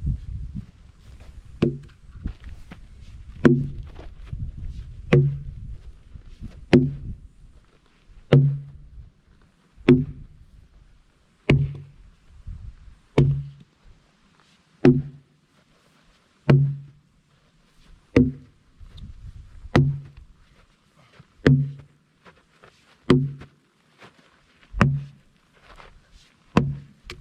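Heavy blows struck at a steady pace, about one every 1.6 seconds, each with a short low ring. A low rumble lies under the first several seconds.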